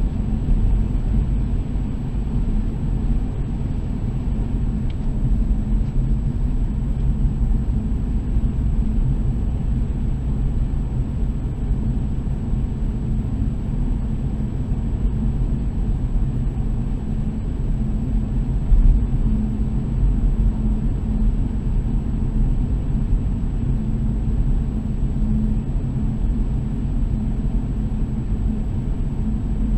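Steady low rumble of a car driving, with tyre noise on a concrete road.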